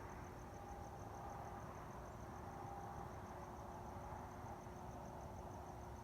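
A cricket chirping steadily and faintly, a high pulsing note at about six or seven pulses a second, over a faint low hum and rumble of night background noise.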